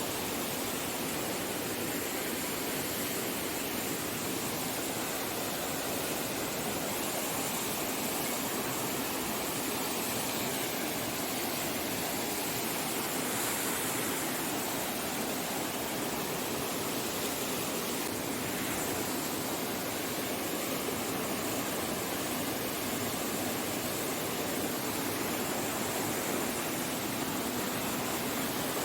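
Waterfall: a steady rushing of falling water, even and unbroken, with little deep rumble.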